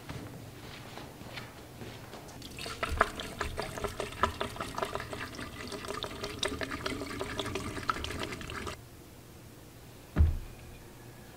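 Liquid glugging and gurgling as it is poured through a plastic funnel into a chainsaw's tank. It starts about two and a half seconds in and cuts off suddenly near nine seconds, followed by a single thump near the end.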